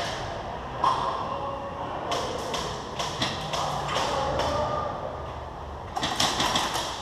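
Airsoft guns firing elsewhere in the building: scattered sharp snaps of shots and BB impacts, single ones at first, then a quick cluster of several near the end.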